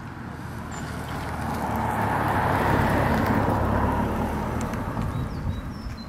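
A car passing by: its engine and tyre noise rises, peaks about three seconds in, then fades away.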